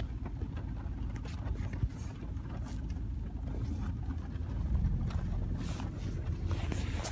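Steady low rumble of vehicle noise, with faint scattered clicks and rustles.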